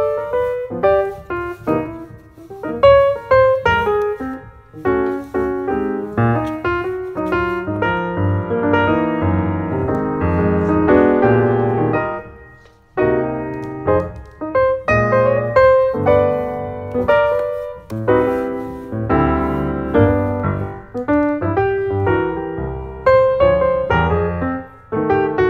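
Solo piano music, melody over chords, with a short pause near the middle.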